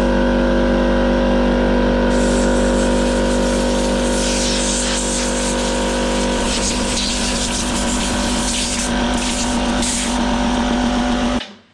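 An electric power tool running at a steady speed, used to clean up a chainsaw part. A harsher, brighter scratching joins in about two seconds in, as the tool works against the part. It stops suddenly shortly before the end.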